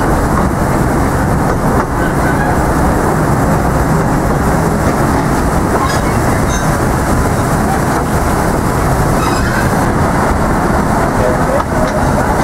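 A 600 mm narrow-gauge forest railway train running, heard from an open passenger car: a steady rumble and rattle of wheels on the rails.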